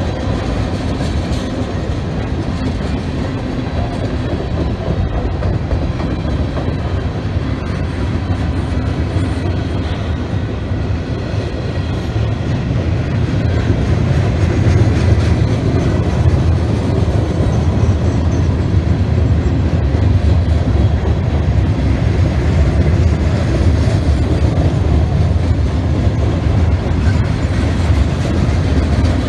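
A CSX freight train's cars rolling past, tank cars and then gondolas: a steady, continuous low rumble of steel wheels on the rails, growing a little louder about halfway through.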